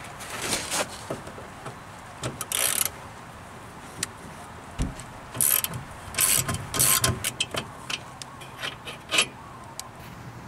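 Ratchet wrench clicking in short spells as bolts are loosened, with scattered small metallic clicks and knocks between.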